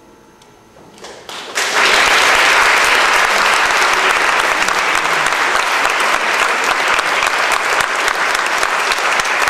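A faint lingering chord fades, then audience applause breaks out about a second in and goes on steadily.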